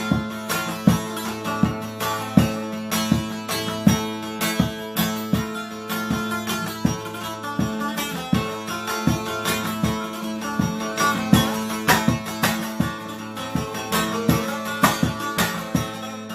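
Instrumental music: a plucked string instrument picked in a steady rhythm over a sustained low drone, with no singing.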